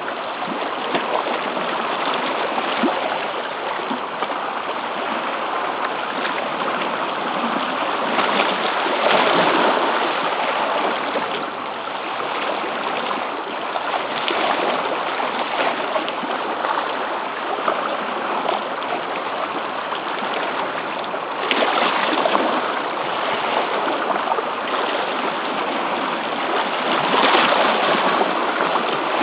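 Sea water washing and rushing over a rocky shoreline, a steady hiss of surf with a few louder surges as waves break in.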